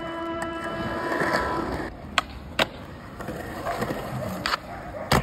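A held music chord dies away about two seconds in. After that, skateboard wheels roll over rough concrete, broken by four sharp clacks of the board, the loudest near the end.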